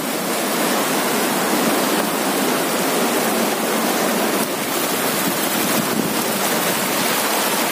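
Steady rush of sea surf.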